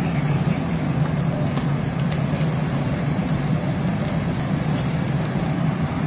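Fire engine's diesel engine running steadily, a continuous low drone.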